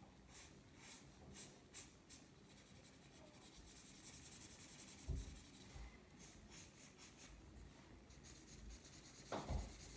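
Felt-tip marker scratching faintly across paper in short, close hatching strokes as an area is coloured in. A soft bump about halfway and another near the end.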